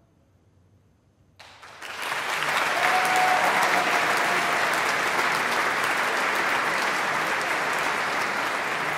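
Audience applause breaks out suddenly about a second and a half in, after a short near-silence following the end of an a cappella choir piece, and keeps going steadily.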